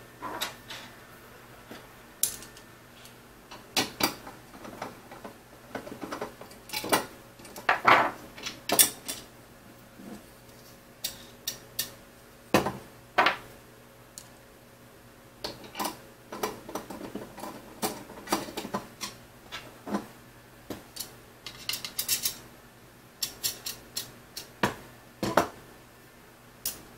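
Irregular light metal clicks and clinks of small hardware being handled: M5 screws and T-slot nuts tapping against an aluminium extrusion and a 3D-printed bracket as two screws are picked up and turned in with a hand driver.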